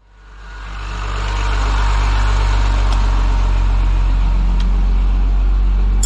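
School bus engine running steadily, fading in over the first second or two.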